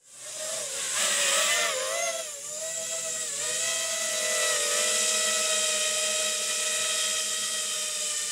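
Small quadcopter drone's propellers whining as it flies, fading in at the start. The pitch wavers up and down for the first few seconds, then holds steady.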